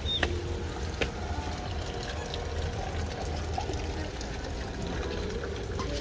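Water trickling and splashing steadily in a small garden water feature, with a short bird chirp at the start.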